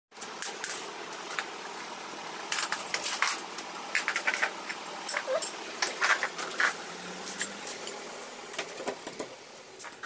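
Irregular clicks and knocks from a mortise door lock, its key and its handle being worked by hand.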